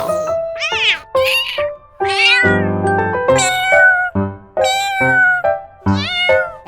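Domestic cat meowing, a quick string of about seven or eight short meows that rise and fall in pitch, one of them lower and rougher near the middle.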